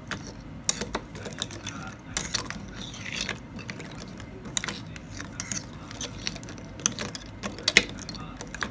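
Small objects being handled: irregular clicks, taps and short rustles, with the loudest clicks near the end, over a low room hum.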